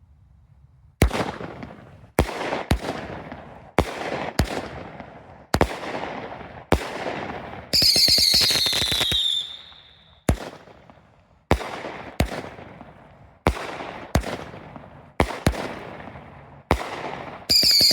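A 24-shot, 200-gram Monkey Business firework cake from Raccoon Fireworks firing shot after shot, about one a second. Each shot is a sharp bang followed by a fading crackle. About eight seconds in, a loud whistle falls in pitch for a second and a half, and another whistle starts near the end.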